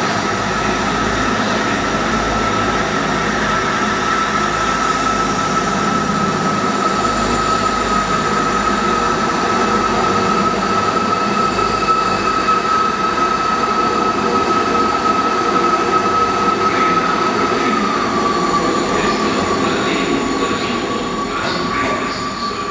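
South West Trains Class 159 diesel multiple unit pulling away from the platform, its underfloor diesel engines running under power with a steady high whine over the rumble; the whine dips slightly in pitch near the end.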